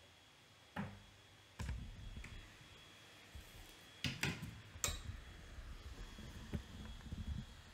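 Scattered sharp clicks and knocks with dull low thuds between them, bunched around a second in and again four to five seconds in, over a faint steady high whine.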